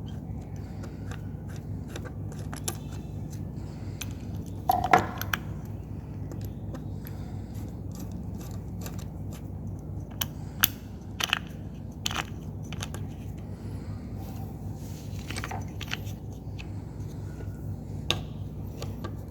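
Scattered small metal clicks, taps and scrapes from hands and a tool working on an industrial single-needle sewing machine's stitch-length mechanism, over a steady low hum. The loudest is a short rattle about five seconds in, with sharper single clicks later.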